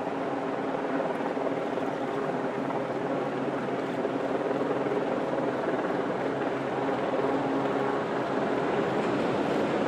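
Diesel-electric locomotive, JR Kyushu's DF200-7000, running steadily as it approaches: a constant drone with several held pitches.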